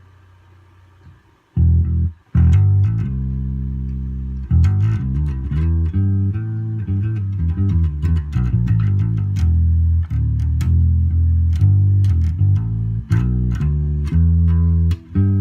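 Electric bass guitar played with the Carvin's EQ set about midway: a bass line of plucked notes that starts about a second and a half in and runs on with changing pitches. Before it, a faint steady amplifier hum.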